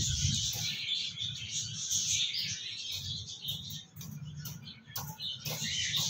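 Small birds chirping in a steady, dense chatter over a low rumble, with a thump right at the start and a few sharp clicks near the end.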